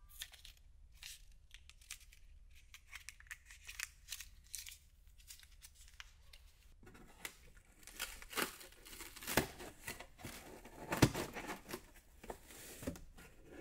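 Thin plastic protective film being peeled off small rubber parts, crinkling and crackling. It turns to louder rustling about seven seconds in, with a few sharp knocks, the loudest about eleven seconds in.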